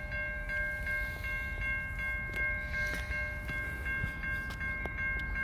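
Safetran Type 3 electronic crossing bell ringing as the crossing warning runs, with rapid, evenly spaced strikes over a steady ring.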